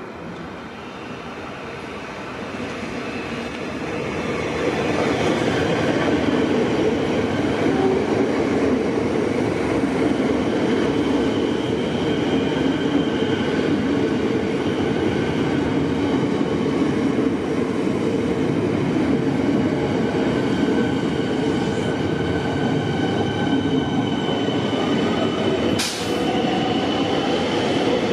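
A Metro Trains Melbourne suburban electric train approaches, getting louder over the first five seconds, then runs past close by with a steady rumble of wheels on rail. A high whine rides over it, and there is one sharp click near the end.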